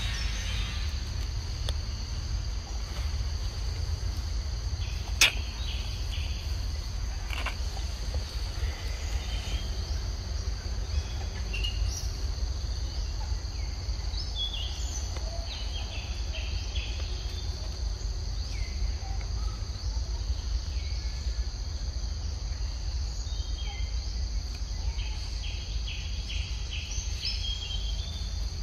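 Forest ambience: a steady high insect drone with short bird chirps scattered through it, over a constant low rumble. A single sharp click sounds about five seconds in.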